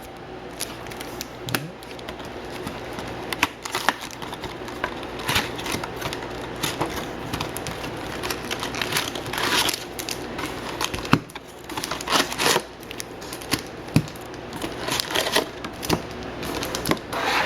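Foil-wrapped trading card packs being handled and taken out of a cardboard box: crinkling wrappers with many light clicks and taps.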